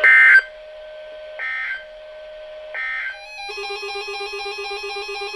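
Three short bursts of screeching EAS/SAME digital data from a NOAA Weather Radio broadcast, about 1.4 s apart: the end-of-message code that closes an emergency alert message. About three and a half seconds in, a warbling electronic tone pattern starts and keeps repeating quickly.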